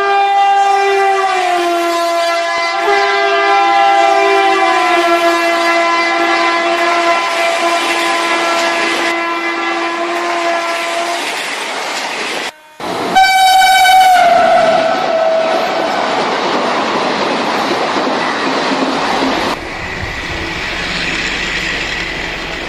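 Battery-operated toy train sound effects: a long train horn blast that slides down a little in pitch and holds for about ten seconds, then after a brief break a second, higher horn blast that falls away. Under and after the horns, the running noise of the toy trains on plastic track, turning to a steadier hum near the end.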